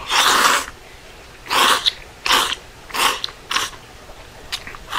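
Udon noodles being slurped from a bowl of hot broth: one long, loud slurp, then a string of four shorter slurps.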